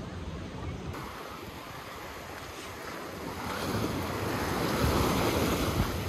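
Small sea waves washing and splashing against a concrete pier and the shingle beach, growing louder in the second half, with wind on the microphone.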